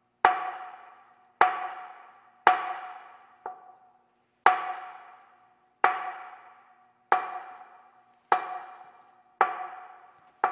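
Temple wooden board (ban) struck with a wooden striker in a slow, slightly uneven rhythm of about nine knocks roughly a second apart, one of them a lighter tap. Each knock rings with a clear tone that dies away. This is the ending-board rhythm that closes the temple's morning waking-up board signal.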